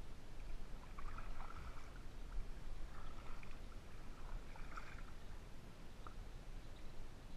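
Kayak being paddled: faint splashes of the paddle in the water about every two seconds, over a steady low rumble.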